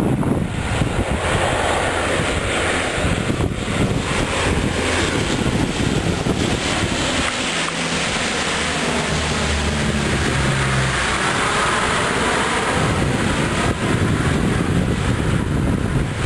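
Lockheed P-3 Orion's four Allison T56 turboprop engines droning as the aircraft flies low overhead with its gear down, the low propeller hum strongest as it passes near the middle and then going away.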